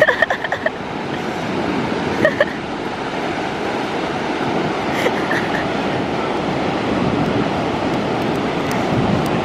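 Ocean surf washing onto the beach, a steady rushing noise. Brief high-pitched cries cut through it at the start and again about two seconds in.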